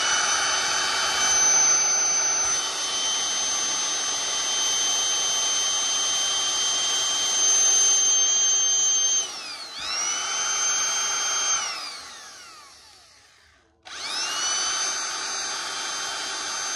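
Makita 100 V corded hammer drill, about 300-odd watts, running with no load. The trigger is pulled three times: each time the motor whine climbs quickly to full speed and holds steady, then falls away as the motor coasts down after release. The first run lasts about nine seconds, the second is a short burst, and the third runs until near the end.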